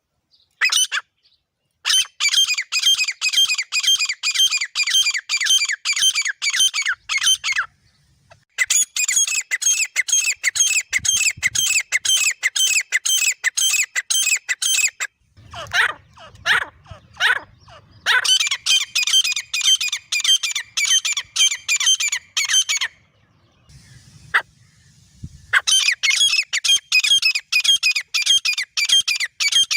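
Grey francolin calling: long bouts of fast, evenly repeated shrill notes, each bout lasting several seconds with short pauses between. About halfway through there is a short run of a few separate, lower calls before the rapid calling resumes.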